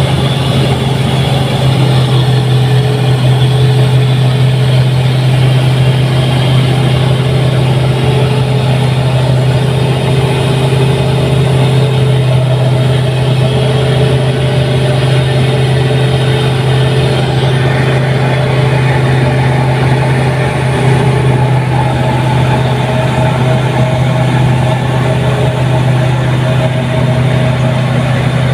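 New Holland 8060 rice combine harvester running steadily: a loud, even engine drone with a strong low hum.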